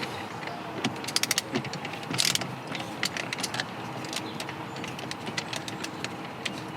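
Screwdriver backing out the Phillips head screws of a car's dashboard radio panel. A quick run of small clicks about a second in, a short scrape just after, then scattered light ticks and handling noises.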